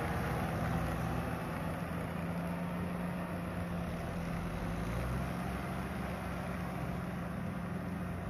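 Farm tractor's diesel engine running steadily with a low, even drone.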